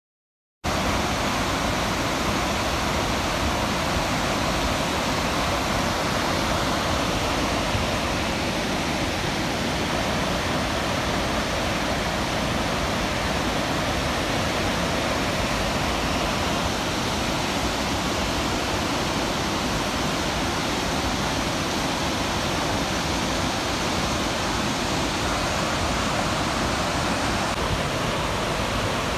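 The whitewater of Rearguard Falls on the upper Fraser River rushing steadily. It starts about half a second in and stays at one even level throughout.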